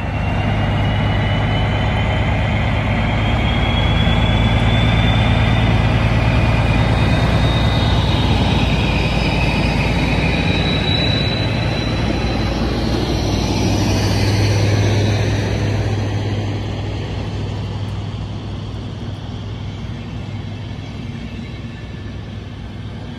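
DB Class 218 diesel-hydraulic locomotive hauling an Intercity train past under power: a loud steady engine drone with a high whine that rises in pitch over the first ten seconds. After about sixteen seconds the engine fades and the coaches' wheels roll by more quietly.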